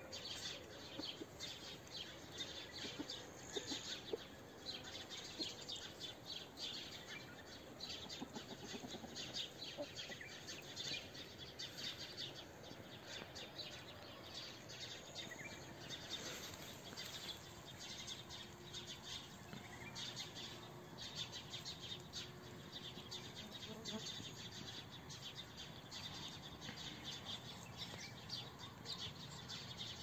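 Small birds chirping and twittering continuously, a dense chorus of many short calls.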